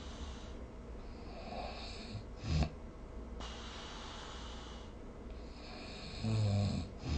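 Sleeping person snoring: quiet airy breaths, a short sharp snort about two and a half seconds in, and a longer, louder low-pitched snore near the end.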